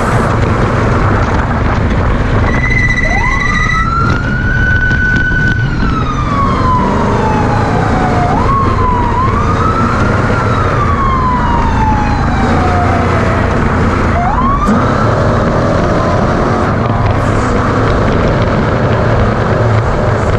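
A desert race truck's engine running hard with steady loud drive noise, while a siren of the kind race vehicles sound to warn slower traffic of a pass winds up and slowly dies away three times. A steady beep sounds for about a second near the start.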